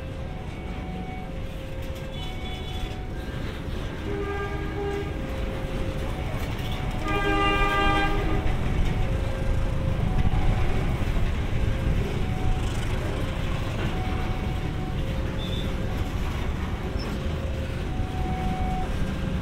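Diesel locomotive horn sounding twice as a tank-car train approaches: a short blast about four seconds in, then a louder, longer one about seven seconds in. The low rumble of the train grows louder from then on. A level-crossing warning chime repeats two alternating notes throughout.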